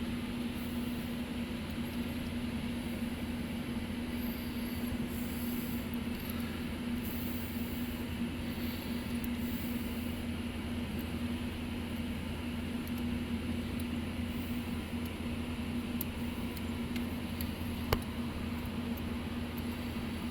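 Steady mechanical hum with a low rumble and one fixed tone, and a single sharp click near the end.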